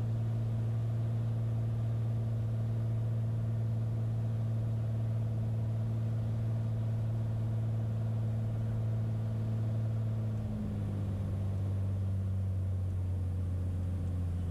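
Beechcraft Bonanza's piston engine and propeller droning steadily through the landing flare, then dropping to a lower note about ten seconds in as the plane slows on the runway.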